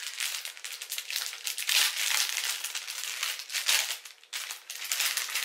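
Clear plastic packaging bag crinkling and rustling in quick irregular bursts as it is handled and opened.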